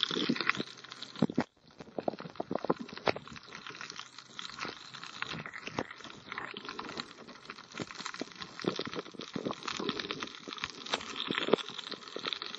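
Irregular underwater crackling and clicking picked up by a submerged camera. It drops out briefly about a second and a half in.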